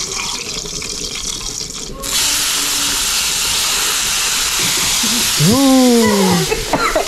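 Dried beef frying in hot oil in a wok with a steady hiss. About two seconds in, chopped tomatoes and green chillies go into the hot oil and the sizzle jumps to a loud, sharp hiss that keeps going. A voice gives a long falling exclamation over it about five and a half seconds in.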